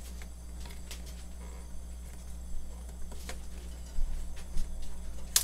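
Fingers picking and scratching at sticky packing tape on a cardboard mailing box, giving scattered short scratches and clicks that grow louder and more frequent near the end, over a steady low hum.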